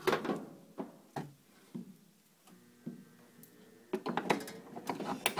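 Scattered clicks and knocks of a power cord and its plug being handled and pushed into a wall socket, with a cluster of sharper knocks near the end.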